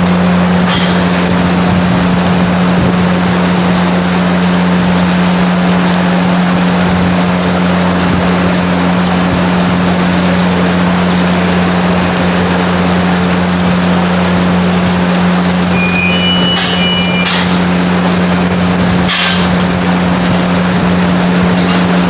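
An engine running steadily with a constant low hum under a loud rushing noise, with a few short high chirps about two-thirds of the way through.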